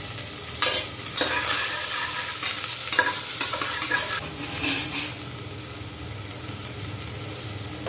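Chopped onion sizzling steadily as it fries in oil in an aluminium pressure cooker. From about half a second in until about five seconds in, a slotted spatula stirs the onion and scrapes and clicks against the pot.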